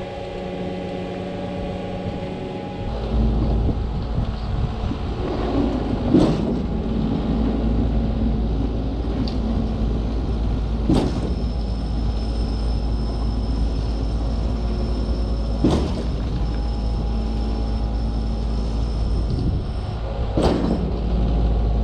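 Concord 40-meter Z-boom concrete pump truck rises to a heavy steady rumble about three seconds in. A sharp clunk comes about every five seconds, four times in all.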